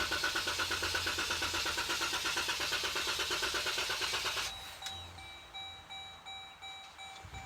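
Jeep Grand Cherokee engine cranking on its starter motor with a fast, even pulsing for about four and a half seconds, then stopping without catching: a failed start. Afterwards faint steady high tones and a few clicks remain.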